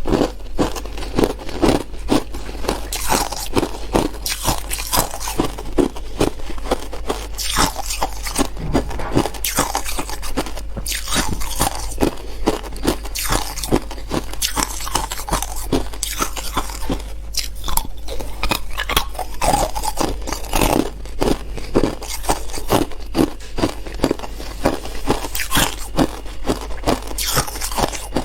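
Hard clear ice being bitten and chewed: a continuous run of loud, sharp crunches, several a second.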